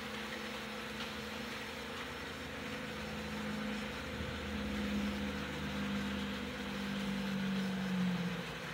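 Electric model trains running around their track: a steady running hiss, with a low motor hum that swells from about three seconds in and drops away near the end as a train passes closer and then moves off.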